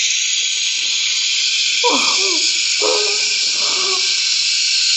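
Loud, steady hiss playing back from a video on a computer's speaker, starting and stopping abruptly, with faint voices under it.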